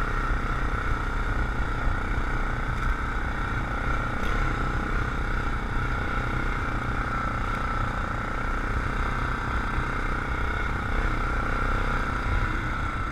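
Yamaha Grizzly 700 ATV's single-cylinder engine running steadily while riding, with a low rumble and a steady high whine that hold even throughout.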